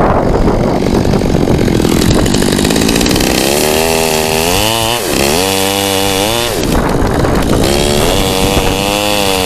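Chainsaw running and cutting, its engine pitch wavering under load, dipping sharply twice and climbing back.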